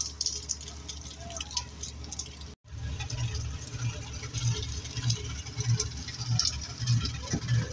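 Rain pattering and dripping over the low hum of a diesel locomotive's engine running close by, the hum pulsing about three times a second. The sound cuts out completely for a moment about two and a half seconds in.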